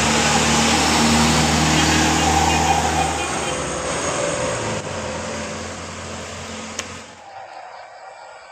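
A bus driving past with its engine running over loud road and tyre noise, slowly fading away; the sound drops off sharply about seven seconds in.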